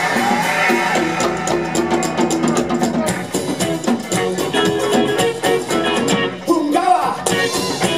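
Live rock and roll band playing: electric guitars and a strummed acoustic guitar over a drum kit beat.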